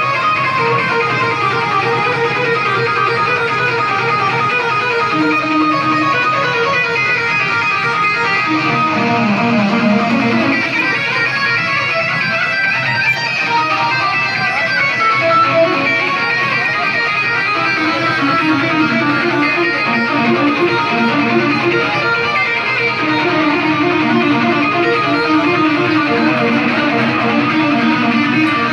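Electric guitar solo played live through a loud amplifier, with fast runs of notes.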